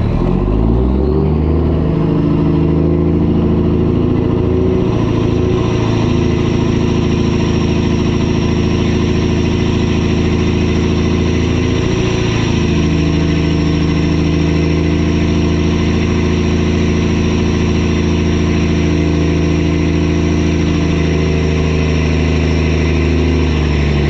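Pickup truck engine running under load while towing an empty flatbed gooseneck trailer, with a thin high whine above it. The pitch climbs at the start, drops and climbs again about halfway, and falls near the end.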